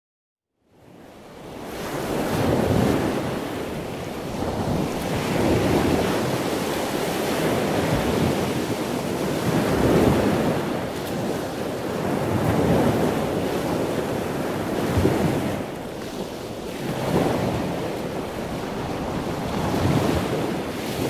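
Ocean surf with wind: a steady rush of water that swells and falls back every three to four seconds, fading in about a second in.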